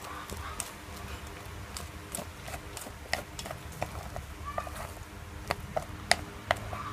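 A utensil stirring and turning over freshly cooked rice in an aluminium pot, with many irregular light clicks and taps against the pot.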